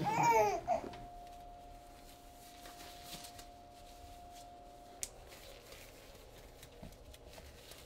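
Faint rustling and crinkling of nitrile exam gloves being handled and pulled on, with a sharp snap about five seconds in. A steady soft tone holds under it for the first few seconds.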